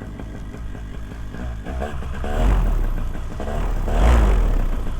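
Vittorazi Moster 185 single-cylinder two-stroke paramotor engine running, revved up and back down a few times, with the loudest blips about two and a half and four seconds in.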